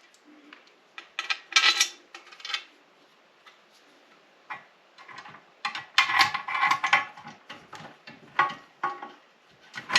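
Small metal bolts and washers clinking and rattling against a metal TV mounting plate as they are fitted by hand, in irregular bursts of clicks with short metallic ringing, busiest about six to seven seconds in.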